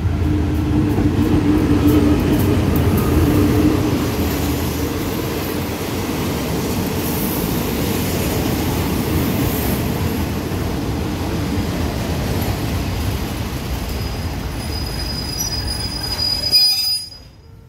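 Diesel-hauled passenger train pulling in: the locomotive's engine passes in the first few seconds, then the coaches' wheels roll over the rails with a steady rumble. A thin high brake squeal comes in near the end, and then the noise drops away suddenly as the train comes to a stand.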